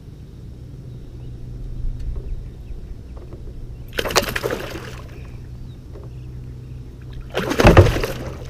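A hooked bowfin thrashing and splashing at the water's surface beside a kayak: one splash about four seconds in and a louder one near the end.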